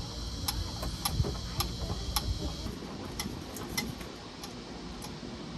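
Worn-out rear struts of a 2004 Kia Sedona clicking, a sharp click about twice a second, with low knocks in the first couple of seconds.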